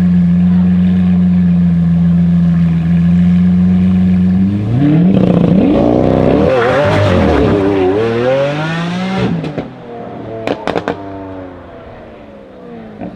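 Lamborghini Aventador S V12 idling steadily, then about four and a half seconds in it accelerates hard, its pitch climbing and dropping through the gears. It then fires a few sharp exhaust crackles as it pulls away and fades.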